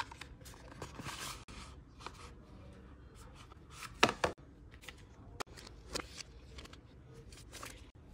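Cardboard and paper being handled while a smartphone box is opened: rustling, light taps and clicks as the inner box and tray are pulled and the documentation packet is lifted out, with one sharp knock on the table about four seconds in.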